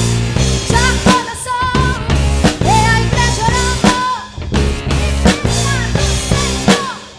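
A live rock-style gospel band playing: drum kit with kick and snare hits, electric bass and guitar, under a sung melody with long held and sliding notes. The band drops back briefly near the end before the next hit.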